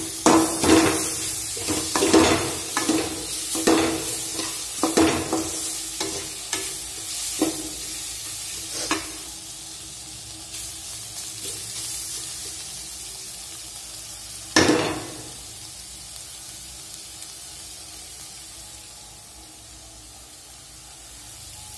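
Chopped bottle gourd stir-frying in an aluminium kadai, a metal spoon scraping and knocking against the pan over a steady sizzle. The stirring strokes come about one or two a second for the first seven or eight seconds, with one more loud scrape about two-thirds of the way in, and after that only the sizzle is heard.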